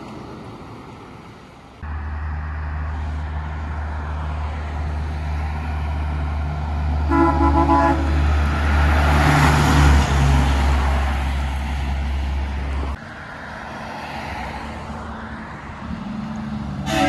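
Heavy trucks on the road: a deep, steady engine drone with tyre and road rush that swells around the middle and cuts off suddenly about 13 seconds in. A truck's air horn sounds one short chord about seven seconds in.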